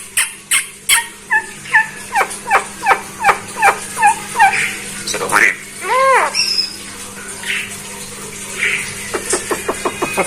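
Javan myna calling: a run of sharp, falling whistled notes about two to three a second, then a longer arched call about six seconds in, and a quick series of clicks near the end.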